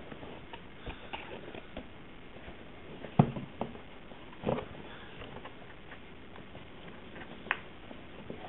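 A cardboard shipping box being handled: scattered taps, knocks and scrapes of hands and flaps on the cardboard, the loudest knock about three seconds in.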